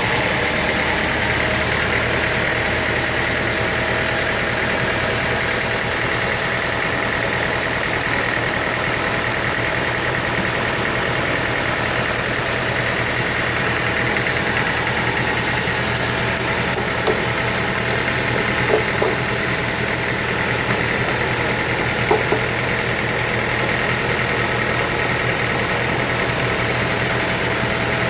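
Sawmill machinery running steadily: a low hum under a constant high whine, with a few brief knocks in the second half.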